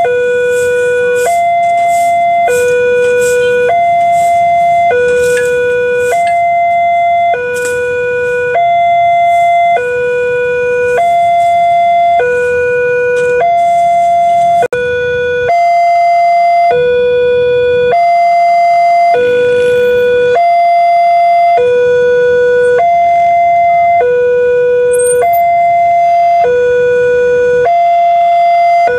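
Railway level-crossing warning alarm sounding its electronic two-tone signal, alternating between a lower and a higher tone about once a second. There is a brief dropout about halfway through.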